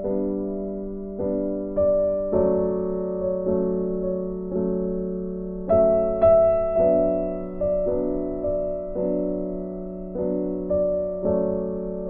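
Background music: a slow, gentle piano piece, single notes and chords struck and left to fade, with a louder chord about halfway through.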